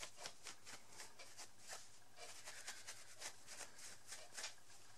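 Faint rubbing of a cloth wiping marker ink off a rubber stamp, a quick run of soft strokes several times a second.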